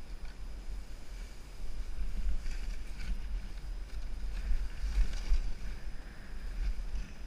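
Wind buffeting a helmet action camera's microphone as a skier goes downhill, with skis hissing and scraping over chopped-up snow, louder in patches in the middle of the run.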